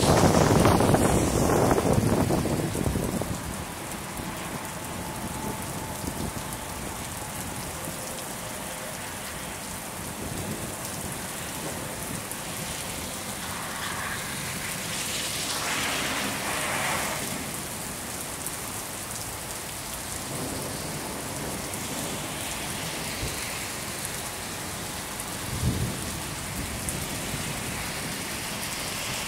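Steady rain hissing down on wet pavement, with a low rumble of thunder fading away over the first few seconds. The rain swells briefly about halfway through, and there is a single soft thump near the end.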